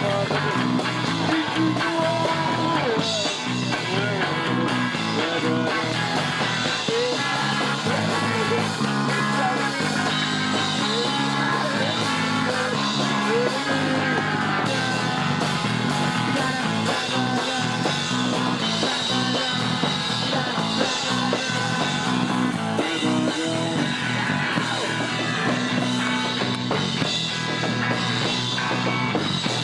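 Punk rock band playing live: distorted electric guitars, bass and drums, loud and steady, with shouted vocals here and there.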